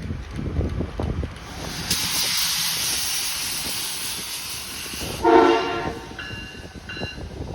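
Train rumbling over the rails, then a steady hiss for about three seconds. Just after five seconds in comes a loud horn blast, followed by shorter, fainter horn notes near the end.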